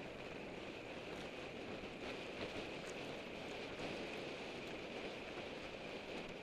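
Steady rushing wind and road noise on a Contour HD action camera's microphone, carried on a racing road bike at about 25 mph.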